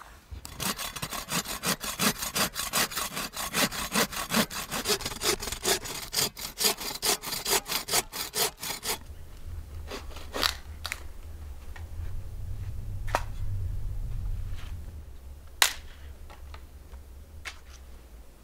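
Footsteps crunching through deep, cold snow in a quick, very regular rhythm of crisp scraping strokes, which stops about nine seconds in. After that a low rumble swells and fades, with a few isolated sharp clicks.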